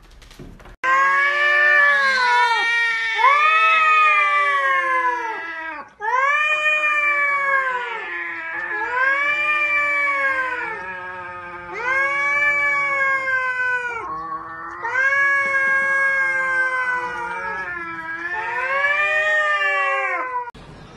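Cats caterwauling: a long series of drawn-out yowls, each rising and then falling in pitch, one after another, the territorial yowling of two cats squaring off through a glass door.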